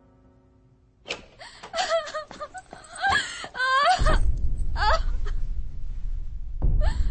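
A woman sobbing and gasping in distress, with short high wailing cries breaking in about a second in. A low rumble sits underneath from about four seconds in.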